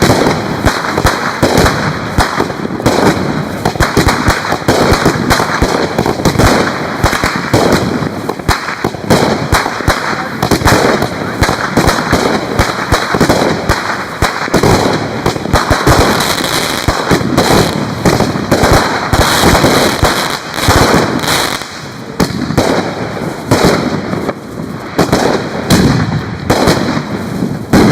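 A continuous barrage of fireworks: rapid, overlapping bangs and crackling that never let up.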